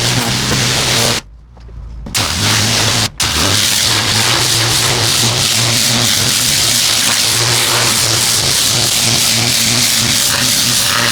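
Pressure washer with a turbo nozzle spraying concrete: a loud, steady hiss of water on the surface over a steady low hum. The spray drops out for about a second near the start, then resumes, with a very short break about three seconds in.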